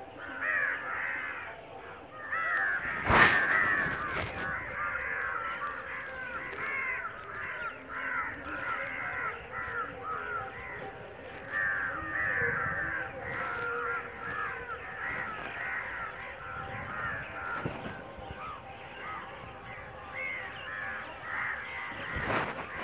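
A large flock of birds gathering at a roost, many harsh calls overlapping without a break. A sharp knock comes about three seconds in and another near the end.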